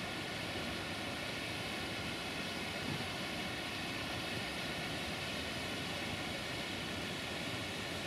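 Steady rushing of falling water from a waterfall and the river below it, an even hiss with no separate events.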